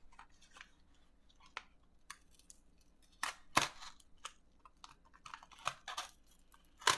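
Scissors cutting open a plastic bubble mailer: irregular snips and crackles of plastic, loudest about three and a half seconds in and again near the end.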